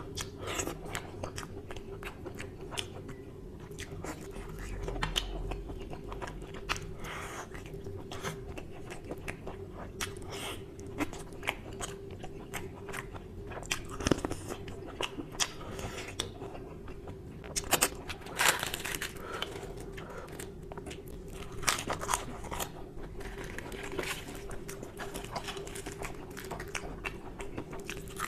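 Close-miked eating: biting and chewing mutton curry and luchi by hand, with many short wet mouth clicks and smacks throughout and a few longer squelchy bites. A faint steady hum runs underneath.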